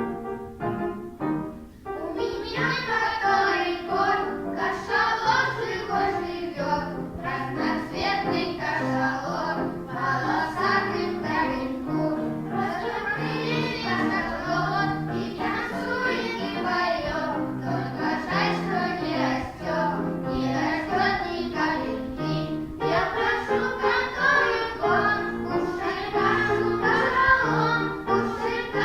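A children's song: a short instrumental lead-in on keyboard, then a group of children singing together over the backing music from about two seconds in.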